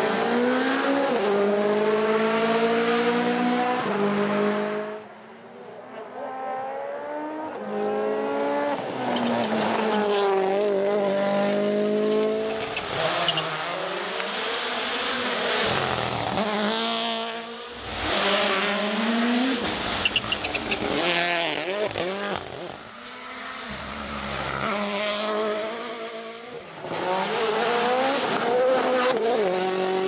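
World Rally Championship Rally1 cars' turbocharged 1.6-litre four-cylinder engines at full throttle, several cars passing one after another. Each engine note climbs in pitch with quick gear changes, then fades as the car goes by.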